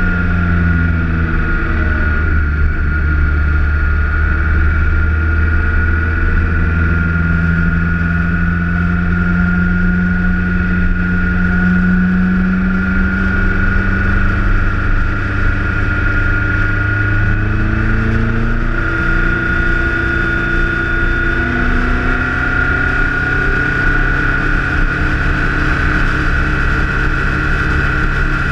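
BMW K1300S inline-four engine running at road speed, heard from a fairing-mounted camera, with wind and road noise. The engine note rises and drops gently a few times with the throttle, over a steady high whine.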